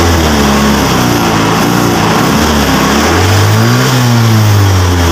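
Yamaha Mio Sporty scooter's single-cylinder four-stroke engine running and being revved by hand on the throttle: a few small blips, then one longer rev that rises to a peak about four seconds in and drops back. It is a test run after the carburetor air screw was set at one and a half turns, to chase a misfire.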